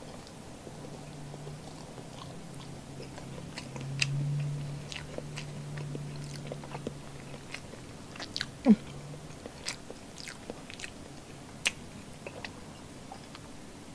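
Close-up eating sounds of a person chewing milkfish and rice: wet chewing with scattered sharp mouth clicks and smacks, the sharpest about two-thirds of the way through. A low steady hum runs under the first two-thirds.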